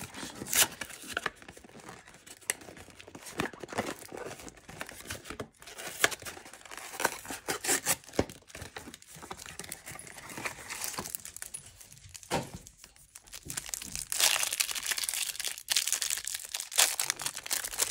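A cardboard hanger box of Topps baseball cards being torn open and the plastic wrapping around its stack of cards crinkling, with scattered crackles and taps that grow louder and busier near the end.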